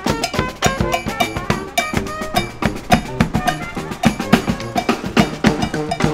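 Marching brass band playing: horns carry a tune over a busy, quick beat of snare and bass drum.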